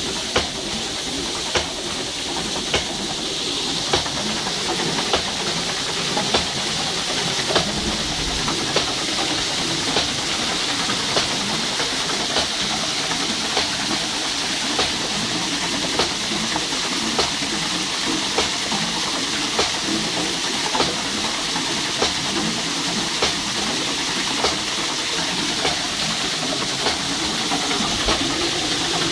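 Water pouring from a plastic pipe onto a wooden water wheel and splashing off its turning paddles, a steady rushing hiss. A sharp click or knock comes about once a second, keeping an even beat.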